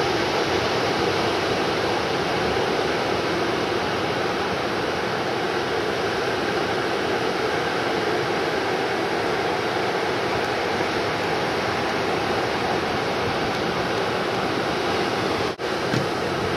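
Steady roar of breaking ocean surf, an even wash of noise that cuts out briefly near the end.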